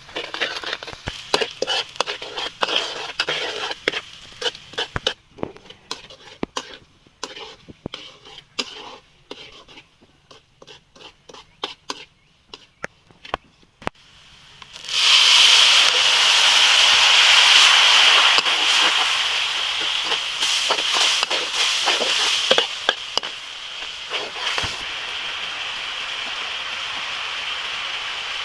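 Scattered clicks and knocks of handling and stirring for about fourteen seconds, then food going into hot oil with a sudden loud sizzle that hisses on and slowly eases, as frying for catfish with soybeans.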